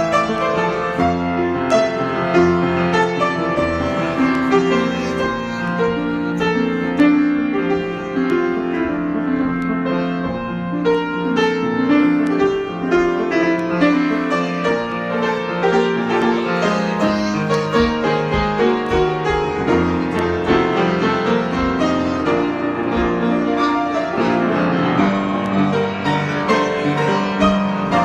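Piano improvisation, a continuous flow of notes and chords with no pause.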